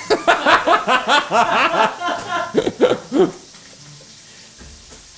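People laughing in a burst of chuckles and snickers for about three seconds after a joke, then it dies away, leaving a faint sizzle of sausage frying in a skillet.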